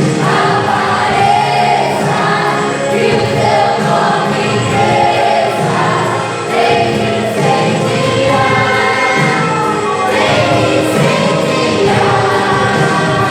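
A church worship group singing a gospel song together, several voices in a continuous, flowing melody.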